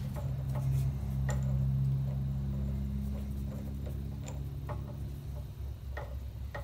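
Scattered light metallic clicks and taps from a drill chuck and tooling being handled and swapped on a milling machine spindle, over a steady low hum that fades about four seconds in.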